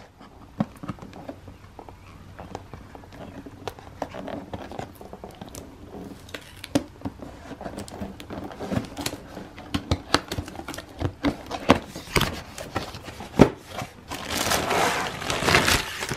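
Cardboard box being opened by hand: tape picked and peeled off the cardboard and flaps worked open, with scattered scratches and clicks. Near the end a louder stretch of plastic bag crinkling as the bagged plastic pipes and joints are handled in the box.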